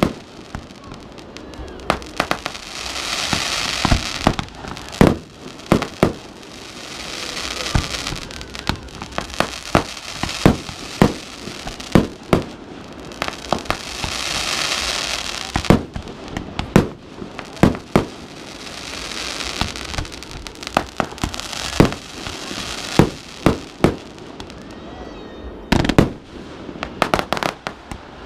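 Fireworks display: a rapid, uneven string of sharp bangs from shells launching and bursting. Every few seconds a swell of hissing crackle rises and fades between the bangs.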